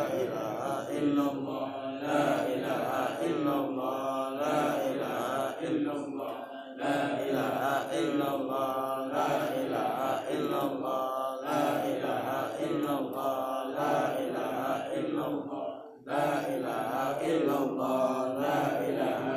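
A man's voice chanting an Islamic devotional recitation into a microphone, in long melodic phrases with brief pauses for breath between them.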